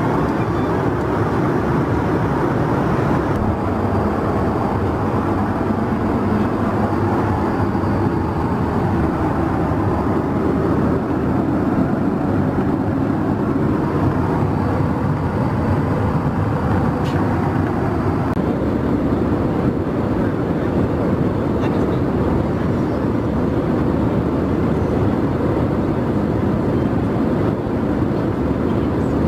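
Steady cabin noise of an Airbus A320 in cruise: the even rush of airflow and engines heard from inside the passenger cabin, mostly deep in pitch and unchanging.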